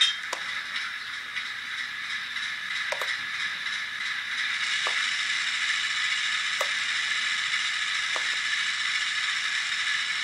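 Hornby OO gauge Class 08 diesel shunter model with sound, its small onboard speaker playing the shunter's diesel engine sound as the locomotive creeps along the track. The sound is steady and grows a little louder about four and a half seconds in, with a few separate short clicks.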